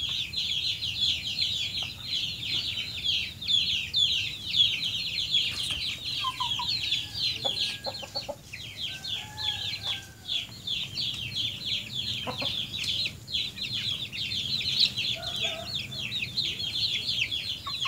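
Free-range chickens: a dense, unbroken stream of short, high, falling peeps, with a few lower clucks and calls in the middle and again near the end.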